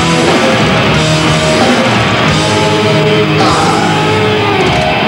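Hard-rock band playing live and loud, with distorted electric guitars and drums.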